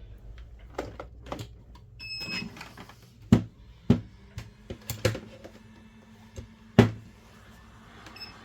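Small tools and phone parts clicking and tapping against each other and the workbench while a smartphone is taken apart. There are a few irregular sharp clicks, with the loudest about three and a half and seven seconds in.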